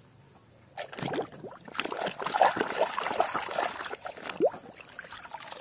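A plastic toy car being washed by hand in a basin of muddy, soapy water: irregular splashing and dribbling that starts about a second in and fades near the end.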